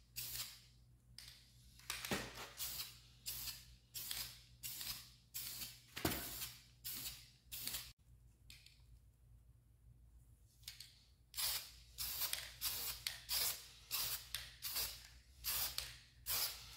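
Aerosol spray paint can sprayed in short hissing bursts, about two a second, laying paint over stencils on a rifle. The bursts stop for about three seconds a little past the middle, then start again at the same pace.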